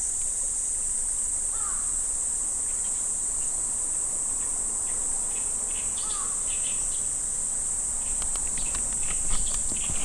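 Insects calling in a steady, high-pitched drone that does not let up, with two faint short chirps and a few light ticks over it.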